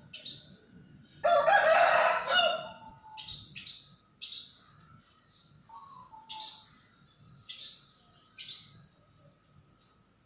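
A rooster crows once about a second in, the loudest sound. Small birds give short, sharp, falling chirps, roughly one a second, before and after it.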